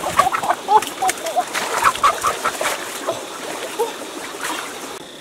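Chicken clucking and squawking in quick short calls, mixed with splashing water. The calls thin out and grow quieter toward the end.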